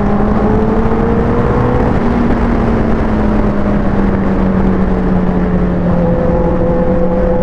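Suzuki Hayabusa's inline-four engine running at steady cruising revs under heavy wind rush over the microphone; the engine note rises slightly about two seconds in and then eases back.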